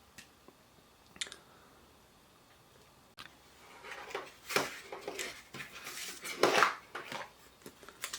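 Hands handling a plastic phone case and its packaging. There are two light clicks, then from about three seconds in a stretch of rustling and crinkling, with two louder bursts.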